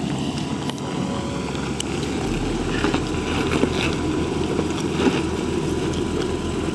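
Off-road vehicle engine running steadily at low revs, with a few light clicks and knocks.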